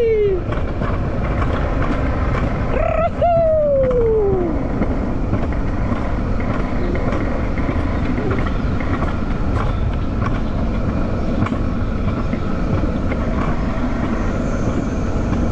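Alpine coaster sled rolling fast down its steel rail, a steady rumble of the wheels on the track. About three seconds in, a rider lets out one long exclamation that falls in pitch.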